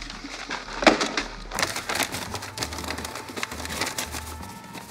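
A man sobbing, with sharp gasps about a second in and wet, crackly whimpering after.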